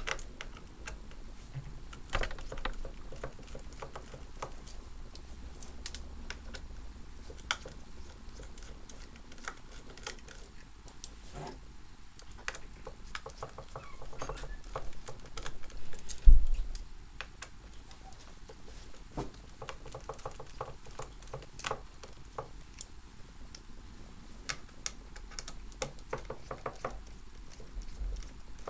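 Scattered small clicks and taps of screws being undone and handled on a GTX 590 graphics card's metal back plate, with one louder thump about sixteen seconds in.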